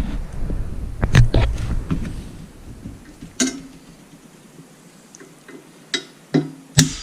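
Hammer driving a punch against the broken shear bolt stuck in a Toro Power Max snowblower's auger shaft: about six sharp metal strikes at uneven intervals, some of them ringing briefly.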